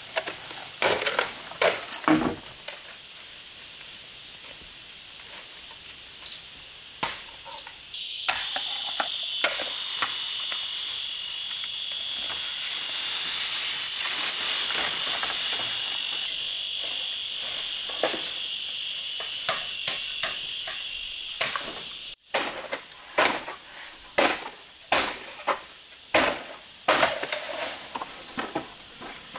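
Insects droning steadily at a high pitch through the middle of the stretch, cutting off suddenly about two-thirds of the way in, with sharp knocks and taps scattered throughout.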